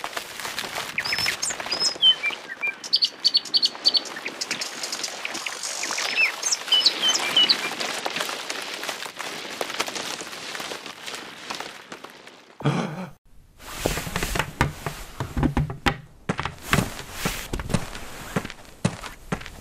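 Small birds chirping over a steady outdoor ambience, with scattered clicks. About two-thirds through the sound drops out briefly and gives way to a run of knocks and thumps.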